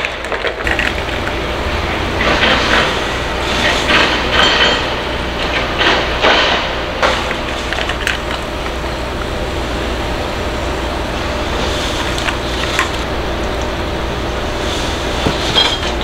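Ice clinking against a glass as an iced drink is stirred, a run of short sharp clicks over the first half, over a steady low rumbling hum.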